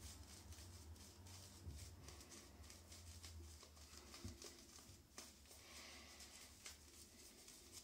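Faint, soft scratchy swishing of a Mühle Silvertip Fibre synthetic shaving brush in many quick repeated strokes as it works lather into the face.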